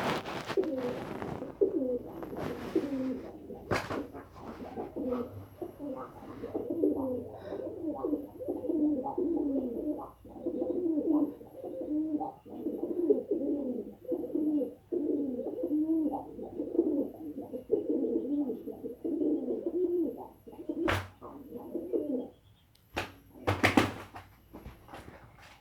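Doves cooing in a long, unbroken run of low, rolling notes that stops about 22 seconds in. A few sharp knocks, two of them near the end.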